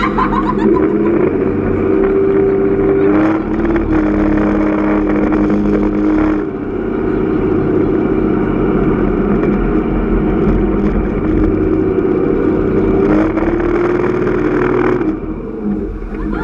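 Speedboat engine running hard, its pitch rising and falling several times as the throttle changes, over rushing water; the engine note drops off near the end.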